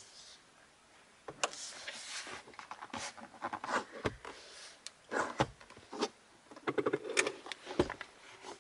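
A hand working the Volkswagen Scirocco's padded centre armrest: a run of plastic clicks, knocks and rubbing as the lid is lifted open over its storage compartment. The sharpest knocks come near the end.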